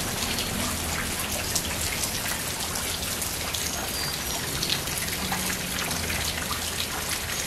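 Steady rain falling on the yard and porch, with many separate drops ticking close by.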